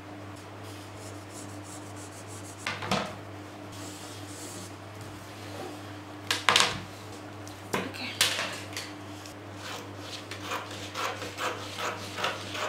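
Handling sounds of pattern drafting: a plastic ruler and marker knocking and rubbing on paper over a wooden table, with a few sharp knocks, then a quick run of short snips and scrapes near the end as scissors cut into the paper pattern. A low steady hum sits underneath.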